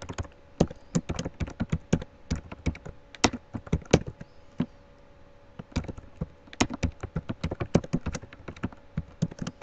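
Typing on a computer keyboard: quick runs of keystrokes that stop for about a second and a half midway, then resume.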